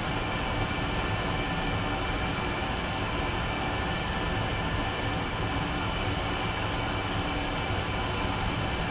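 Steady fan hum with one short, sharp click about five seconds in.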